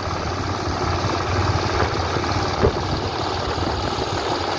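Engine of a rice-harvesting machine (thresher) running steadily, with one short knock about two and a half seconds in.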